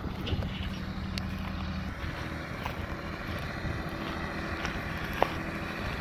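Small farm tractor's engine running steadily at low revs as it tows a flat wagon, a low even hum. A single sharp click about five seconds in.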